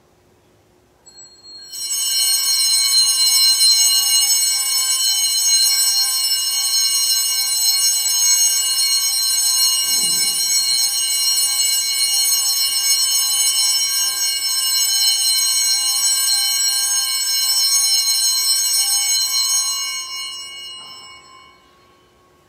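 Altar bells rung without a break for about eighteen seconds, a bright cluster of high ringing tones that then fades out, marking the blessing with the Blessed Sacrament in the monstrance.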